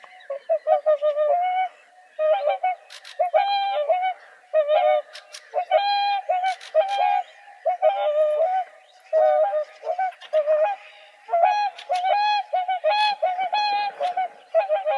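Several swans calling: short, repeated honking calls overlapping one another, coming in bursts of a second or two with brief pauses between.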